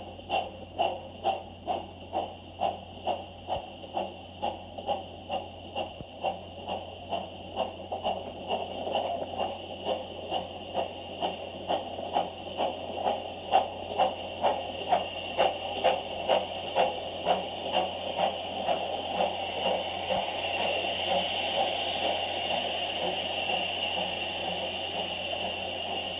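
Exhaust beats of steam locomotives 9351 and 7828, double-heading a train, at about two chuffs a second and loudest as the engines pass. About 18 seconds in, the beats give way to the steady rush of the coaches rolling by.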